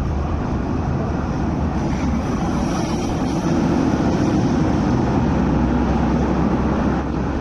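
Hong Kong Peak Tram 6th-generation funicular car rolling out of the station on its rails, a steady low rumble that grows a little louder about halfway through.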